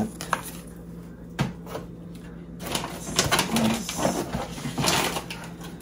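Rustling and a few light knocks as items are handled and moved about, with a brief hum of a voice about three and a half seconds in.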